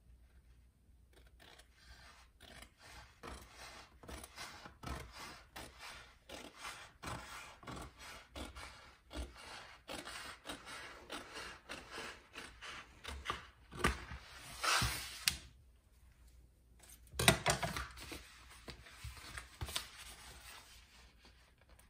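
Scissors snipping through a peel-and-stick brick backsplash sheet in many short cuts, with two louder scraping sounds about two-thirds of the way through.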